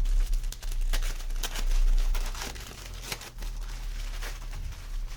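Packaging being opened by hand: crinkling with short tearing sounds, busiest in the first two seconds and sparser after.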